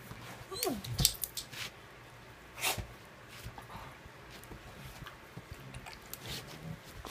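Two Dalmatians play-biting, their teeth clacking together in sharp snaps: a quick cluster about a second in and another loud clack near three seconds, with fainter clicks later. Just before the first snaps there is a brief falling whine.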